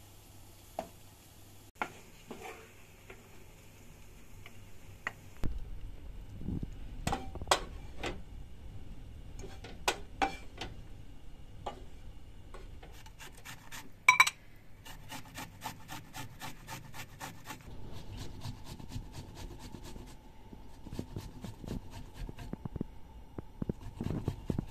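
Kitchen utensils and cookware being handled: scraping, tapping and clinking of dishes and pans, with one loud ringing clink about halfway through, over a low steady background.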